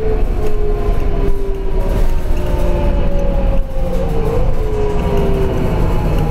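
Inside a New Flyer D40LF diesel city bus under way: a steady low engine and road rumble with a driveline whine that slowly falls in pitch. The rumble dips briefly a little past halfway.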